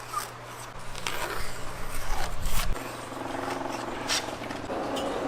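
Scattered knocks and clicks of handling, then about three seconds in a machine starts up and runs with a steady, fast rattle.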